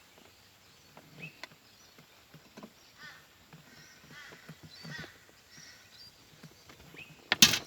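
Birds calling in the background, with small clicks and taps from work on a car's gear shifter, and one loud sharp knock near the end.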